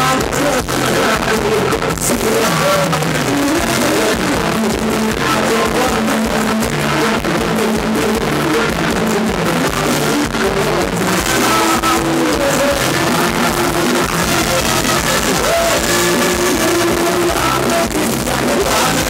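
Loud live dance-band music with a drum kit and cymbals, played for Thai ramwong dancing.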